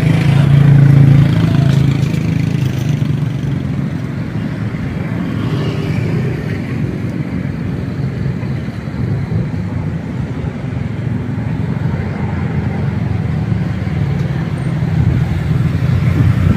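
Road traffic: motor vehicle engines running, a steady low hum that is loudest in the first couple of seconds and swells again near the end.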